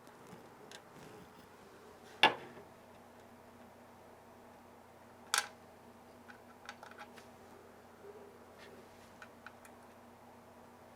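Small metal standoff screws and the PC case being handled. There are two sharp clicks, about two and five seconds in, then a few faint ticks as the standoffs are fitted into the CPU cooler bracket.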